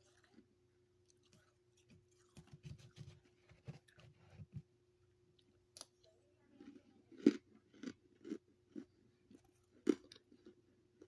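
A person chewing a mouthful of freezer frost, the ice crunching between the teeth in a run of soft crunches, then sharper, louder bites, with the loudest near the end. A steady low hum sits underneath.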